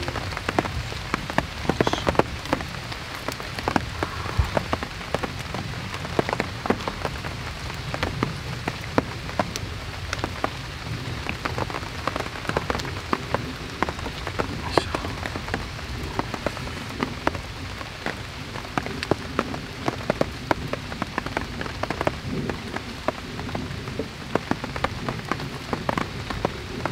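Heavy rain falling steadily: a constant hiss with many sharp ticks of drops striking a surface.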